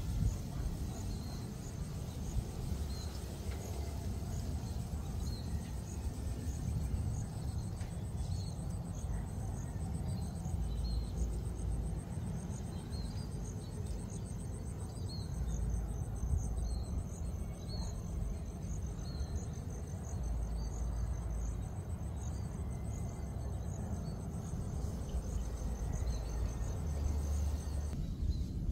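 Outdoor evening ambience: insects trill steadily with a fast, even pulse, while short higher chirps come every second or so over a low rumble.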